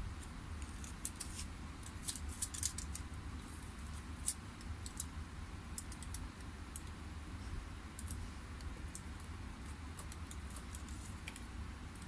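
Scattered small clicks and crinkles of aluminium foil tape being cut and pressed around a chip on a circuit board, over a steady low hum.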